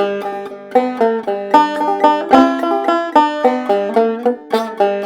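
Clawhammer banjo playing an instrumental break alone, a quick run of plucked notes over a steadily ringing drone note.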